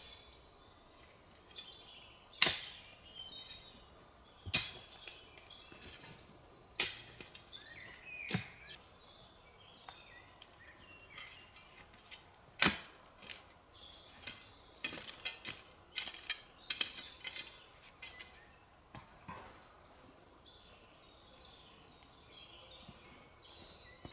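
A series of sharp, irregular knocks and cracks, a dozen or so, the loudest about two seconds in and about halfway through, several more close together a little later. Small birds chirp faintly throughout.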